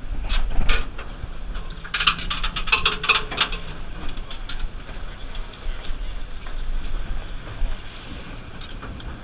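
Spinning reel clicking rapidly for about a second and a half, two seconds in, after a couple of single clicks. Under it, a steady rush of wind on the microphone and water along the hull.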